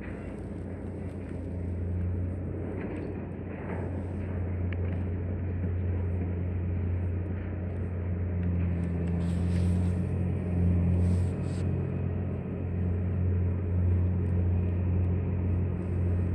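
Steady low engine hum, even in pitch throughout, over a background of noise.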